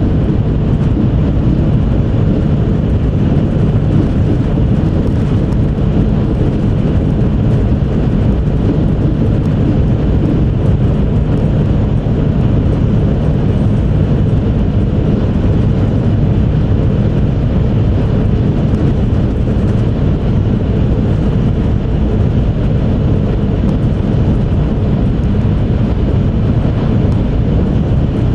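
Steady rumble and rush of an E5 series Shinkansen running at high speed, heard inside the passenger cabin: a deep, even drone with a fainter hiss above it and no changes.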